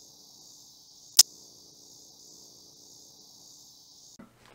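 Steady high chirring of crickets, with one sharp click about a second in, the loudest sound. The chirring cuts off suddenly near the end.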